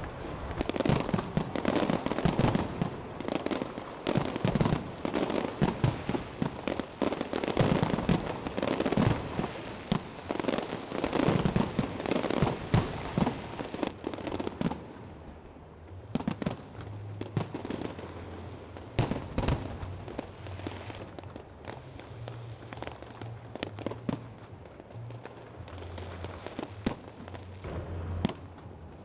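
Fireworks display: a rapid barrage of aerial shells bursting with bangs and crackles, thinning to scattered bangs about halfway through.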